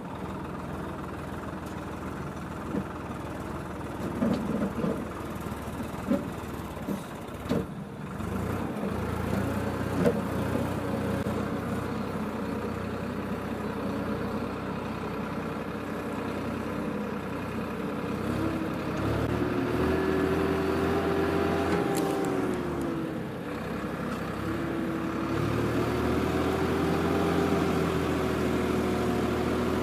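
Swaraj 855 FE tractor's three-cylinder diesel engine running steadily under load as it pulls a plough through the soil. In the second half its pitch sags and picks up again twice as the load changes.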